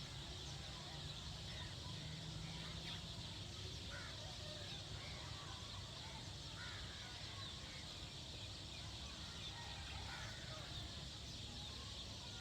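Faint outdoor ambience: a steady low hum and hiss with a few scattered short bird calls.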